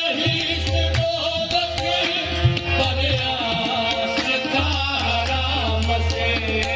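Qawwali music: tabla drumming in a steady rhythm under held melodic tones and singing.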